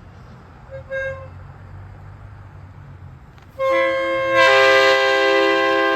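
A GE Evolution Series (GEVO) locomotive's multi-note air horn sounding a brief faint toot about a second in, then a long, loud chord from about three and a half seconds in, with its notes coming in one after another, over a low steady rumble.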